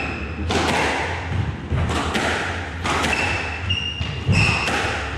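Squash rally: the ball cracking off rackets and thudding against the court walls, sharp hits about once a second that ring briefly in the enclosed court. Short high squeaks from court shoes on the wooden floor come in the second half.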